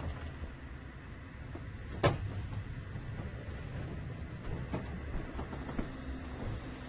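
Faint low hum with one sharp knock about two seconds in and a couple of fainter clicks later.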